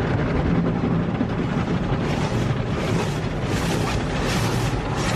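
Water and foam from an automatic car wash spraying against the car, heard from inside the cabin as a steady rushing hiss. From about two seconds in it pulses in quick sweeps, two or three a second.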